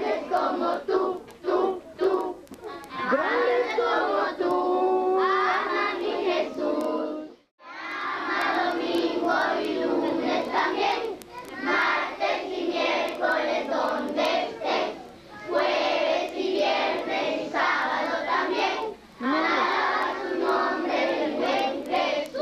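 A roomful of children's voices singing and shouting together loudly, with held notes. The sound drops out briefly about seven and a half seconds in, then the group voices carry on.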